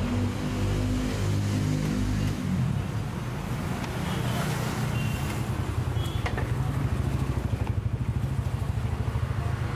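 A motor-vehicle engine running nearby with a steady, rapid low throb, its pitch shifting in the first couple of seconds before it settles, over street noise.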